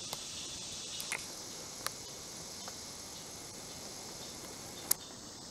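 A steady chorus of insects, with a thin high note that joins about a second in and stops near the end. A few sharp clicks cut through, the loudest near the end.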